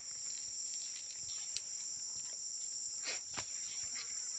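Insects buzzing steadily at a high pitch, with a few faint clicks.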